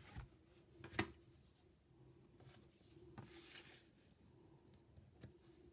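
Near silence: room tone with a faint steady hum, one sharp click about a second in, and a soft rustle a little after three seconds.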